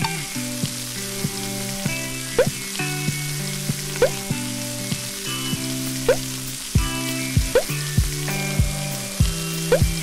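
Steady sizzling hiss of food frying on a grill, a sound effect, laid over light background music.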